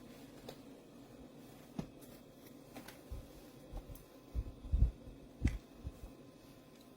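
Shark TurboBlade bladeless tower fan running with a faint steady hum. Scattered small clicks are heard, and from about halfway through there are several low thumps.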